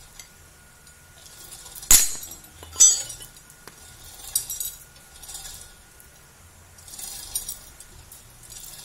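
Sharp metal-on-metal clinks and strikes as a new clutch release bearing is tapped into place. Two loud ringing hits come about two seconds in and nearly a second apart, followed by a few lighter clinks.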